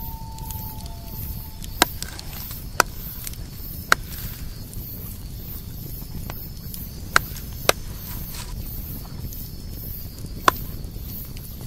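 Six sharp, irregularly spaced clicks or knocks over a steady low rumble.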